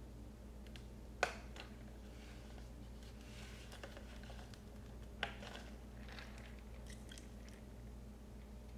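Faint chewing and small mouth noises of someone eating, with two sharp clicks about four seconds apart, over a low steady hum.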